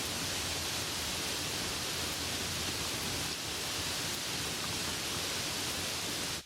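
Steady soft rain falling, an even hiss that cuts off suddenly at the very end.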